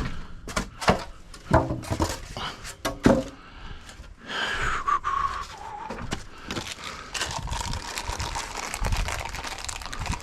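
Parts being handled during hand assembly: a run of sharp knocks and clacks in the first three seconds, then scraping and rustling with a brief falling squeak.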